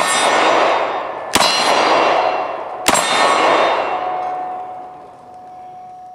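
Three 9mm pistol shots from a Glock 19, about a second and a half apart, each followed by a long ringing of struck steel targets and echo that dies away over a second or more.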